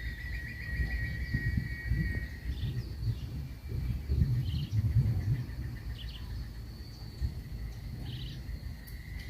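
Outdoor lakeside ambience: a steady, pulsing insect trill that fades out about two seconds in, a few short, scattered bird chirps, and a loud, uneven low rumble of noise throughout.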